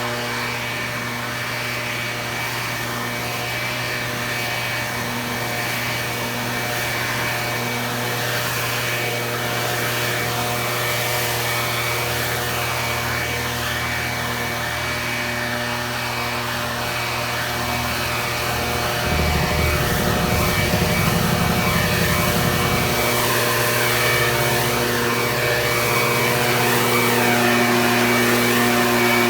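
Small gasoline engine of outdoor power equipment running steadily at high speed, with a deeper rumble for a few seconds about two-thirds through.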